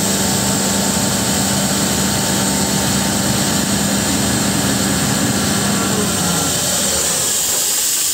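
Sullair portable air compressor with a Caterpillar 3306 inline-six diesel running, under a steady hiss of air. About six seconds in the engine's hum and low rumble fall away, leaving mostly the hiss.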